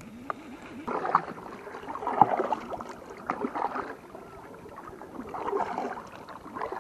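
Kayak paddle strokes: the blade dipping and pulling through lake water, with a swish of water at each stroke, one every one to two seconds.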